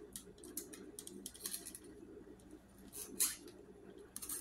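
Small plastic clicks and rustles as a plastic doll's head is worked onto its body, with one louder crackle about three seconds in. A faint steady hum runs underneath.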